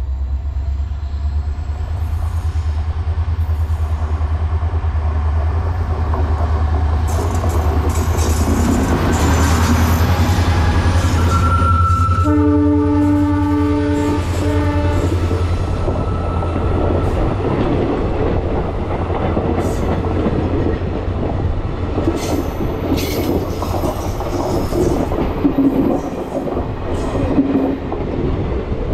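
Passenger train passing close by. The diesel locomotive's low engine rumble builds as it approaches, and its horn sounds a long blast then a short one about halfway through. The coaches then go by with a clickety-clack of wheels over the rail joints.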